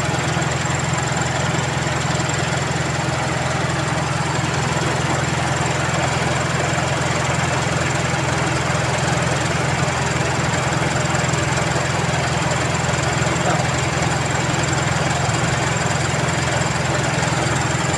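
Toyota Corolla's 2E four-cylinder engine idling steadily.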